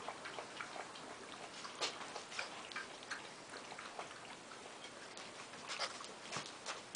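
Puppies eating dry kibble from a glass dish: a quick, irregular run of small crunches and clicks as kibble and teeth knock against the dish.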